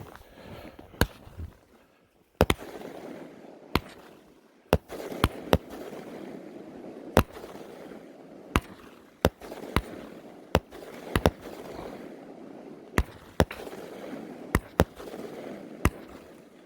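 Maple Madness firework cake firing an uneven string of about twenty sharp bangs, roughly one a second, some in quick pairs, over a steady hiss.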